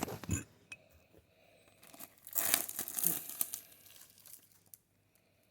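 Plastic wrapping on a phone box being torn and crinkled open, mostly in one stretch of about a second and a half starting about two seconds in.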